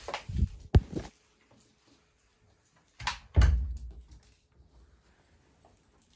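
Bumps and thumps of something being handled: a few quick knocks and a low thud about half a second to a second in, then another knock and a heavier low thud about three seconds in.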